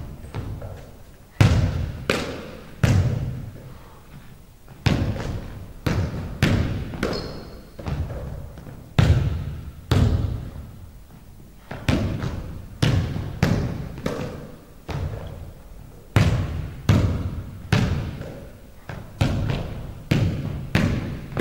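A basketball thudding on a hardwood gym floor again and again at an uneven pace, each thud echoing through the large hall.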